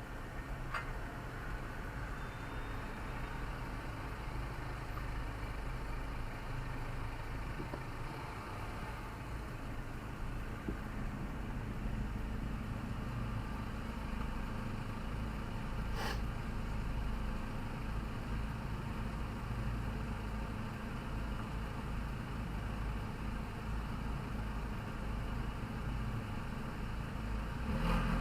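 Steady engine and road rumble heard from inside a moving car, with a single sharp click about halfway through.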